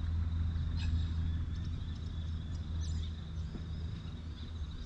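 Riverbank ambience: a steady low rumble, with a continuous high insect drone above it and a few short bird chirps about a second and three seconds in.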